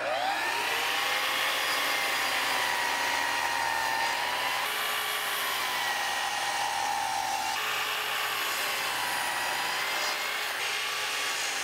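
Festool sliding compound miter saw spinning up and running with a steady motor whine while it cuts 45-degree miters in walnut; the pitch shifts slightly a few times along the way.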